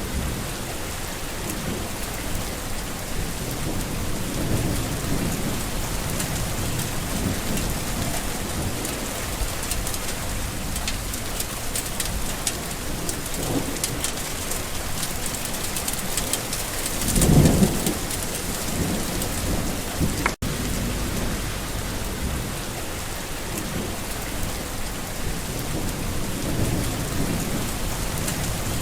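Steady rain falling on surfaces, with low rumbles of thunder. A louder roll of thunder comes a little past the middle.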